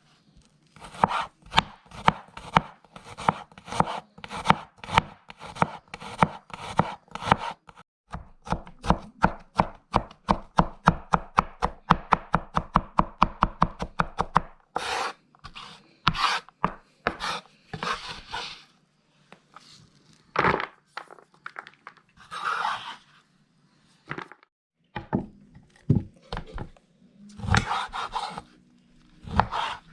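Knife chopping on a cutting board in steady strokes, speeding up to about four or five a second around eight seconds in. About halfway through the chopping stops and gives way to irregular scraping and rubbing.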